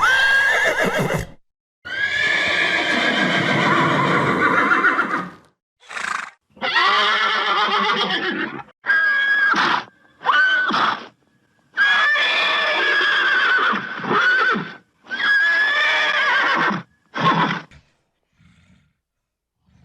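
A series of about ten horse whinnies, some short and some drawn out with a quavering pitch, each broken off by an abrupt silent gap.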